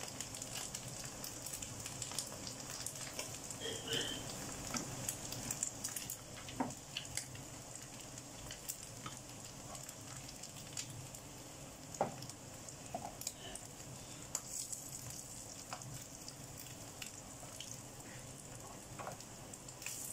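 Flying fish frying in oil in a pan, a steady sizzle with scattered pops and crackles as it fries until crisp. A metal spatula turns the fish now and then, with a few sharper knocks against the pan.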